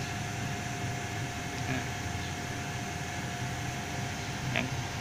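Steady whirring hum of an energised lift control cabinet, its cooling fan running, with a thin steady whine over it. A single sharp click, like a push button or relay, about four and a half seconds in.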